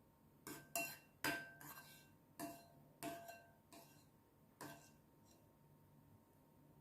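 Tableware clinking and knocking: about eight sharp hits over four seconds, each with a brief ring, like a glass or utensil striking a plate.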